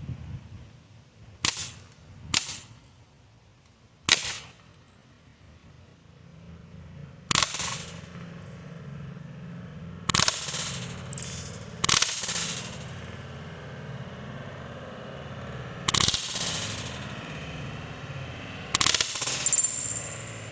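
Daisy Powerline 426 CO2 BB pistol firing about nine single shots at uneven intervals, each a sharp pop, several trailed by a brief hiss.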